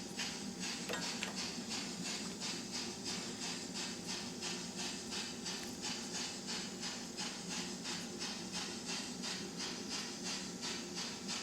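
A LokSound DCC sound decoder in an N scale Bavarian S 3/6 steam locomotive model plays four-cylinder steam exhaust chuffs in a steady, even rhythm. It sounds thin and bass-less through the model's tiny speaker.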